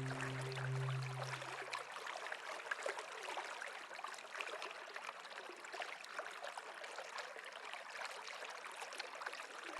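Water trickling steadily over stones like a small stream, full of small splashes. A held low music chord fades out in the first second and a half.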